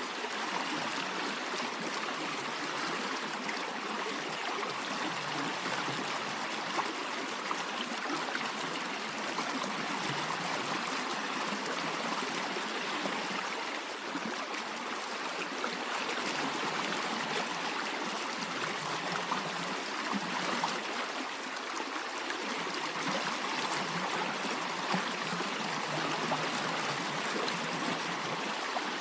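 Stream of water flowing steadily, an even rushing and trickling.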